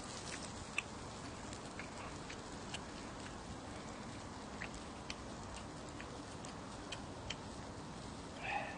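Pork belly sizzling on a griddle: a steady hiss with scattered sharp pops and ticks of spitting fat. A brief voice sound near the end.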